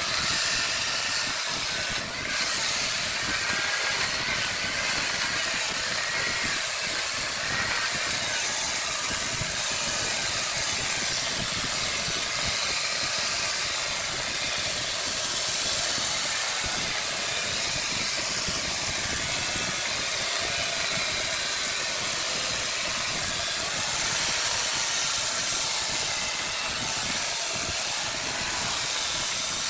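Wood lathe running, with a steady hiss of work on the spinning wood, dipping briefly about two seconds in.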